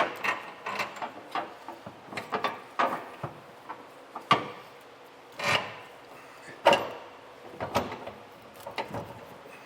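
Irregular metal clicks and knocks of installation hardware being handled and fitted: a spacer sleeve pushed up into a hole, with bolts and a steel bracket. About a dozen separate knocks, four of them louder.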